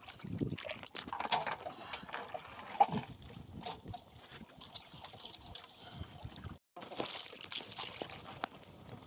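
Water trickling and sloshing off a wet cast net as it is hauled into a wooden canoe and gathered up, with scattered small knocks and one sharp knock about three seconds in. The sound drops out briefly about two-thirds of the way through.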